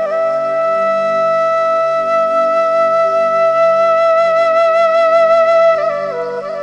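Background music: a wind-instrument melody holds one long note over a steady low drone, then steps down through lower notes near the end.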